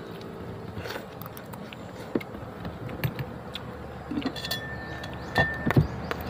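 Scattered light clicks and taps of a meal being eaten from a plastic plate with a spoon on it, with a couple of louder knocks near the end.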